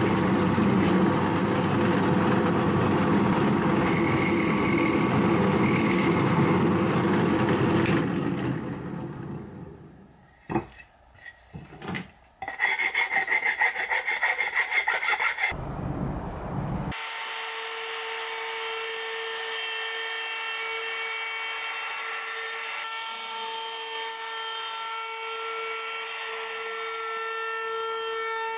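A drill press bit boring into pine board for several seconds, then a few knocks. About three seconds of rapid hand-filing or sanding strokes on the wood follow. For the last ten seconds an electric plunge router runs with a steady whine.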